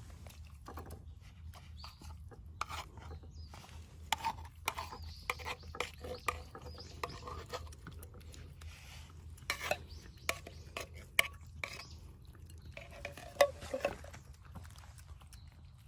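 Wet cat food being scooped and stirred in its tin with a metal utensil: irregular scraping and clicking of metal on metal, with a few sharper clicks.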